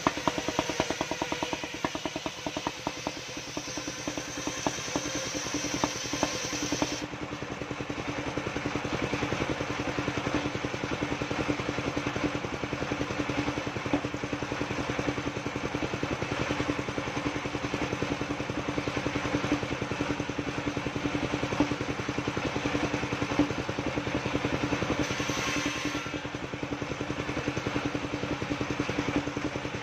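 Engine of a portable circular sawmill running steadily, while the big circular blade rips through timber with a high whine and knocking for the first seven seconds, cutting off suddenly when the cut ends. The blade cuts again briefly a few seconds before the end.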